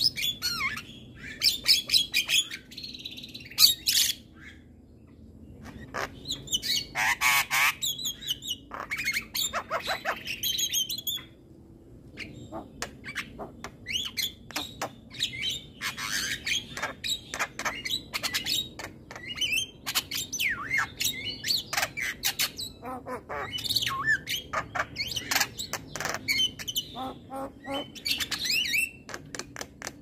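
Javan myna (jalak kebo) singing: fast runs of harsh clicks and chatter mixed with squawks and whistled notes, broken by two short pauses.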